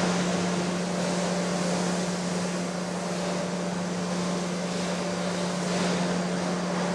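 Surface grinder running: a steady motor hum under an even whirring hiss from the spinning grinding wheel and spindle.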